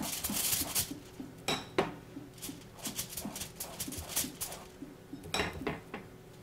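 Pastry brush spreading olive oil over halved eggplants on a foil-lined baking tray: irregular soft taps and clicks, with a few louder clicks.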